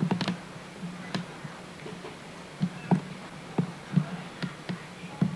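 Steady low hum with about ten light clicks and taps at irregular intervals: handling noise from a handheld camcorder as it is moved.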